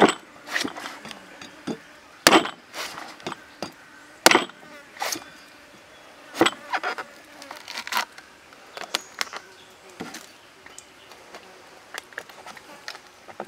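A cleaver chopping into a green coconut's husk: about twenty sharp chops at irregular spacing, the hardest about two and four seconds in, cutting the top open.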